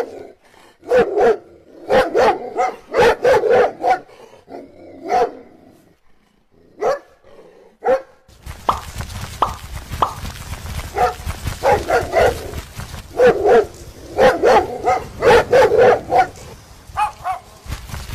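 A dog barking over and over in quick runs of barks. A steady rushing noise joins underneath about eight seconds in.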